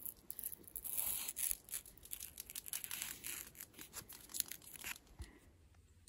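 Cut masking tape being peeled away from watercolor paper: faint, irregular crackling and small ticks that stop about five seconds in.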